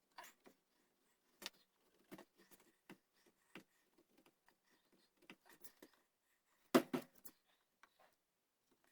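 Hand work on a wooden gunstock: irregular light scratches and taps, with a louder burst of scraping about seven seconds in.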